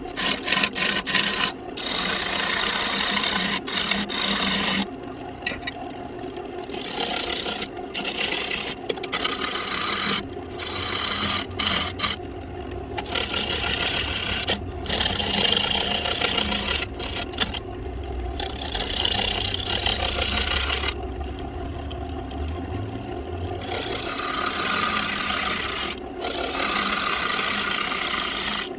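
Wood lathe spinning a walnut blank while a tool rasps against the wood in repeated passes, the cutting sound stopping and starting every second or two over a steady low motor hum.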